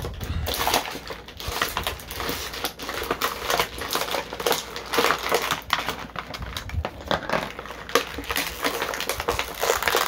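Plastic toy packaging being handled and crinkled: a rapid, irregular crackling with sharper clicks mixed in.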